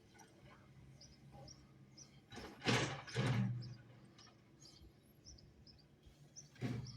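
A small bird chirping over and over with short high notes above a low steady hum, broken by loud rushes of noise: two together about two and a half seconds in and one more near the end.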